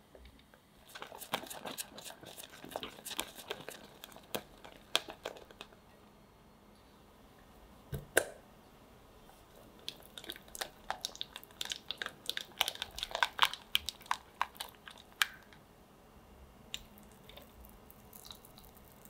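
Silicone spatula stirring thickened custard cream in a saucepan: wet, sticky squishing and clicking against the pot in two busy stretches, with one sharper knock about eight seconds in.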